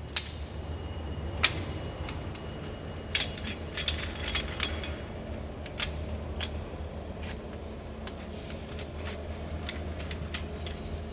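Scattered metallic clicks and clinks of hand tools being handled while a brake piston pusher is readied at a rear brake caliper, over a steady low hum.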